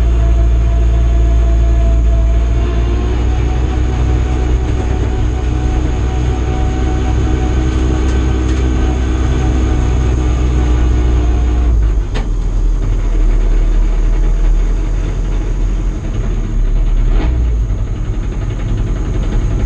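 Ford Fiesta Super1600 rallycross car's 1.6-litre four-cylinder engine running at low speed, a loud steady drone heard from inside the stripped cabin. The deep rumble drops abruptly about twelve seconds in.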